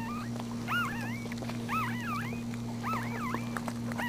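Newborn Maltese puppies squeaking: short, high squeals that rise and fall, several a second, over a steady low hum.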